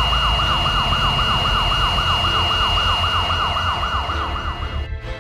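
Police car siren wailing in fast rising-and-falling sweeps, about five or six a second, over a low rumble, with a steady high tone alongside. It cuts off abruptly near the end.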